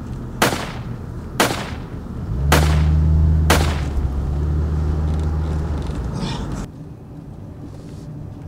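Four gunshots about a second apart, each a sharp crack with a ringing tail. Under the last two a loud low rumble starts, and it cuts off suddenly well before the end.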